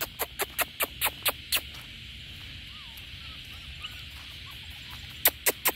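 Quick footsteps crunching on a wet gravel dirt track, about four a second, for the first second and a half and again near the end. Beneath them runs a steady drone of insects, with a few faint chirps in the middle.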